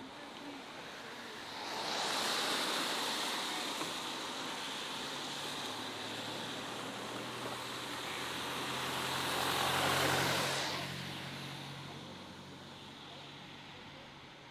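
A motor vehicle passing close by. A rush of noise swells about two seconds in, peaks near ten seconds and fades soon after, with a low engine hum underneath.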